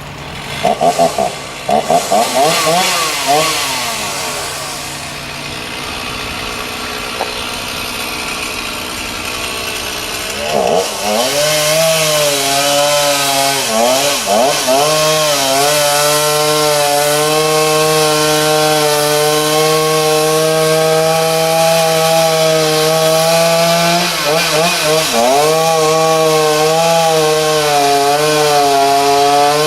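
Chainsaw revved in a few short blips, then held at high throttle from about ten seconds in. Its pitch dips briefly a few times as it cuts into the wood.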